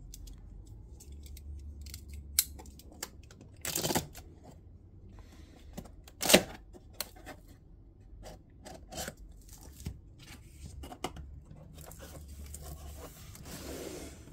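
Cardboard shipping box being opened by hand: a short tearing burst about four seconds in as the tape seal is cut, a sharp click a couple of seconds later, scattered light taps of handling, and cardboard rubbing as the lid flap is lifted near the end.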